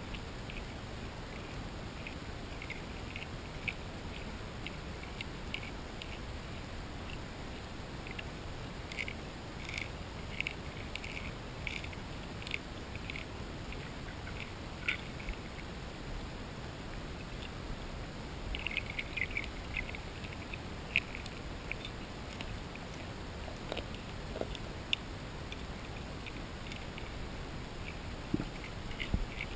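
Grass carp crushing sweetcorn kernels and cat kibble with their throat teeth, heard underwater as irregular sharp cracks and clicks, busiest about nine to thirteen seconds in and again around nineteen seconds in, over a steady underwater hiss.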